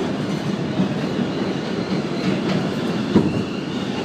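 Inside an R32 subway car running over the bridge: a steady rumble of steel wheels on the rails, with one sharp clack about three seconds in. A faint high whine comes in partway through.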